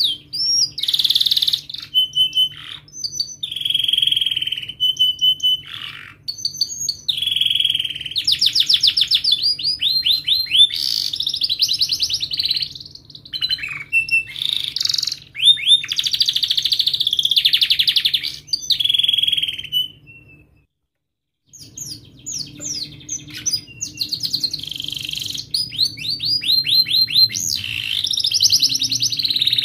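Domestic canary singing in sharp chirps and long rolling trills of fast repeated notes, phrase after phrase. The song breaks off completely for about a second roughly two-thirds of the way through, then resumes.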